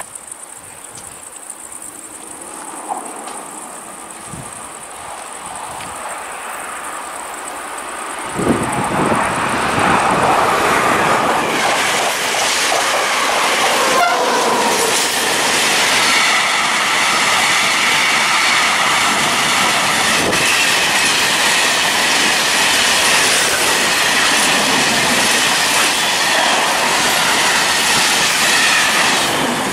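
A freight train hauled by an electric locomotive, BB 22212, passing close by. A faint approach is followed, about eight seconds in, by a sudden jump to a loud, steady rumble and clatter of hopper wagons running over the rails.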